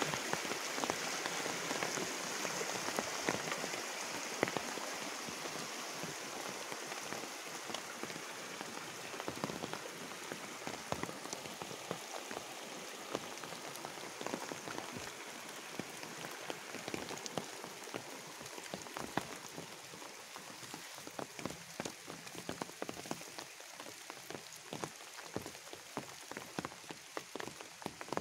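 Steady rain falling on rice plants and bamboo leaves: a dense hiss dotted with separate drop taps, easing slightly in the second half.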